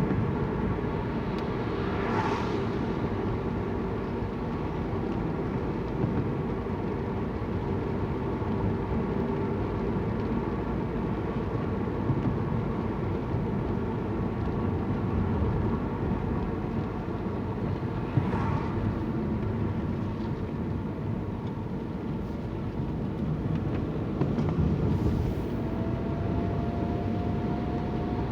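Wet-street ambience: a steady low rumble of outdoor noise on a phone microphone, with a vehicle passing about two seconds in, again about two-thirds of the way through and near the end.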